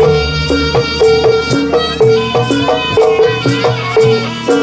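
Live Javanese gamelan music for a jaranan pegon dance. Drum and percussion strokes keep a steady beat of about two a second, under a held note that keeps returning and melodic lines above it.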